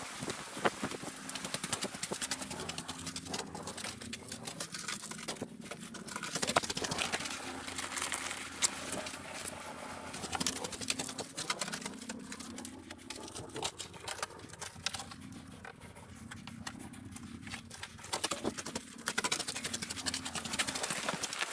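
Rapid pattering clicks of footsteps crunching over pebbles and shingle, with a low hum underneath.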